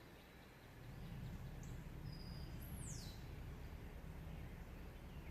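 Faint bird calls outdoors: a short high whistle, a held note and a quick falling sweep about two to three seconds in, over a faint low steady rumble.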